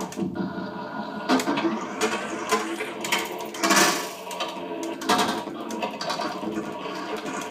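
Electroacoustic improvisation on a Revox A77 reel-to-reel tape recorder: dense manipulated tape sound with layered steady drones, a noisy hiss and sharp clicks, swelling louder a few times.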